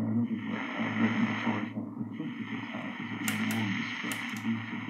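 A long-wave AM broadcast of a voice coming from the Grundig 3160 valve radio's loudspeaker, thin and muffled in the narrow bandwidth of AM reception. A couple of sharp clicks come about three and four seconds in.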